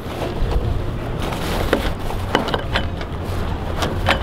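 Scattered light clicks and knocks of gaff-jaw and strap hardware being handled at the mast, about six in four seconds, over a steady low rumble.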